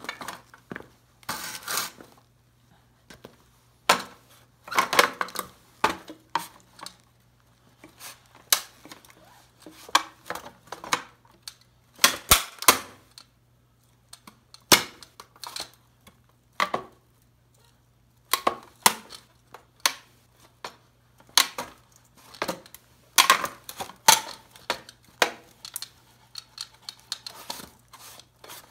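Old tube radio's cabinet cracking and creaking under the weight of heavy boots as it is crushed: irregular sharp snaps and crunches, some single and some in quick clusters.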